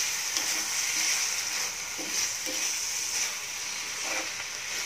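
Chopped onions, tomatoes and ground spices sizzling in a kadhai on the stove while a metal spatula stirs and scrapes through them. The frying is a steady hiss, and the stirring strokes come every second or so.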